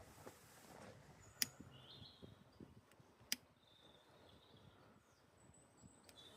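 Near-silent outdoor ambience with two sharp clicks about two seconds apart and a few faint, short, high chirps.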